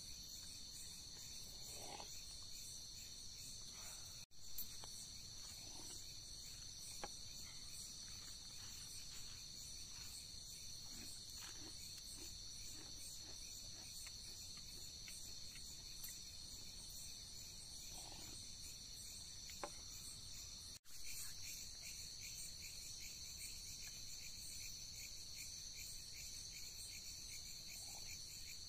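Crickets chirping in a steady, high, pulsing chorus at night, cut off briefly twice.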